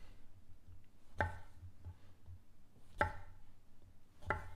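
A knife chopping limes into thirds on a cutting board: three sharp chops, spaced a second or two apart.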